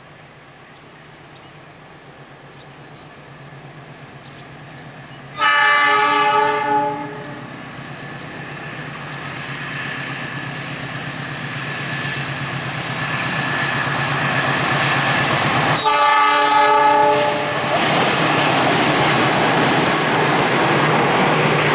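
Diesel-electric locomotive of a departing passenger train approaching, its engine getting steadily louder, sounding its horn twice, each blast about a second and a half long, once early and once about three-quarters of the way through. Near the end the passenger carriages roll past with wheels clacking over the rail joints.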